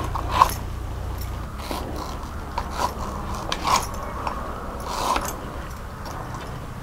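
Small knife cutting and scraping through firm raw mango, paring the soft inner seed core away from the flesh: about five short, crisp cuts spread out, with faint scraping between them.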